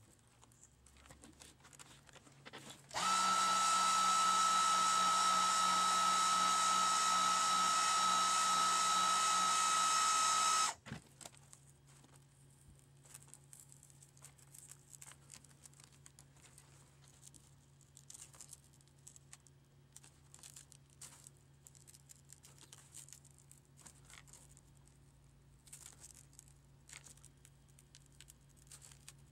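A small electric blower motor runs at a steady pitch with a high whine for about eight seconds, switching on abruptly about three seconds in and cutting off just as suddenly. Before and after it come faint scrapes and clicks of a plastic pry tool prying a cracked glass digitizer off a laptop screen bezel.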